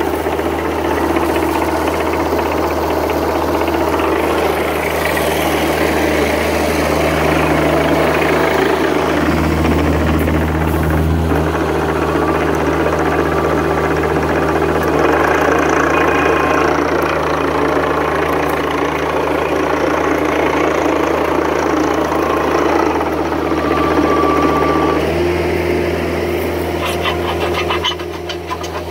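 Kubota KX121-3 mini excavator's diesel engine running steadily, with a knocking diesel clatter.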